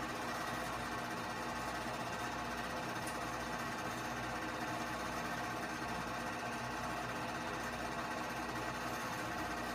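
Keystone K-502 8mm movie projector running steadily: motor hum and the clatter of the film being advanced through the gate.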